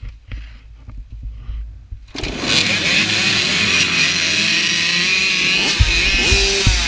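A pack of small motocross bikes, engines revving hard together, cuts in loud about two seconds in after a low rumble, with several engine notes at different pitches rising and falling at once.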